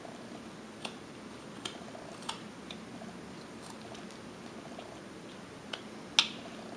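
Whittling knife paring small chips from a basswood carving: about seven short, sharp cutting clicks and snaps, the loudest about six seconds in, over a low steady background noise.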